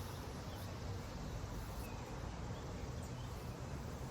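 Quiet outdoor ambience: a steady low rumble with a few faint, short chirps from birds or insects.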